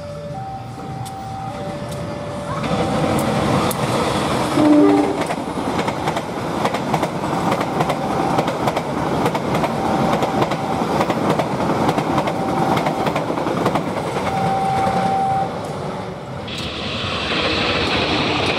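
Joglosemarkerto passenger train passing, its wheels running on the rails in a steady rumble, with a short horn blast about five seconds in. Near the end the coaches roll by close, with a brighter rail hiss.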